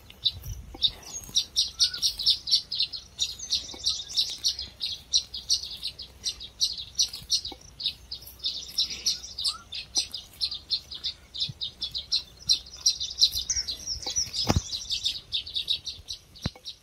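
Baya weaver colony at its hanging woven nests: many birds chirping together in a rapid, unbroken chatter of short, high notes.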